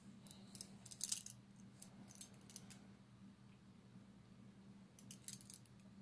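TCH 822 steel chain-link handcuffs being handled: light metallic clicks and clinks of the cuffs and chain, a cluster in the first three seconds and another about five seconds in, over a faint steady low hum.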